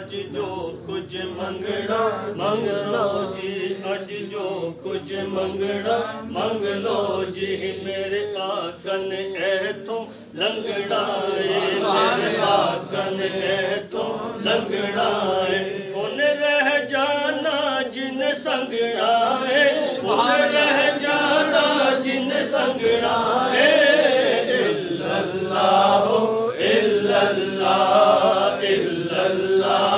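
A group of men chanting an Islamic devotional chant together, their voices continuous and growing louder after the first dozen seconds.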